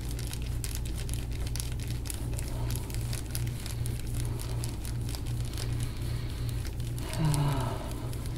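Dense irregular crinkling and crackling clicks from a forearm and elbow pressing and working into a patient's back muscles during deep-tissue release, over a steady low electrical hum. About seven seconds in there is a short low grunt that falls in pitch.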